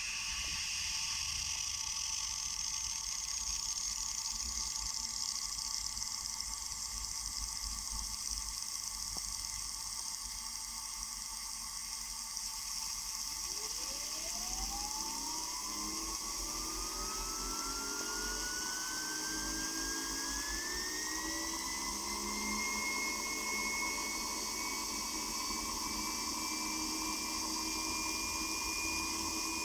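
Gintschel Tornado model steam turbine hissing steadily; about halfway through, its whine starts low and rises steadily in pitch as the turbine spins up, with a low hum beneath it. The turbine is straining to turn the Ferris wheel accessory it drives.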